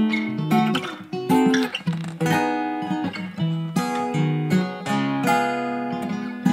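Acoustic guitar strumming chords in an instrumental break between sung lines of a song, with a new chord struck roughly every second.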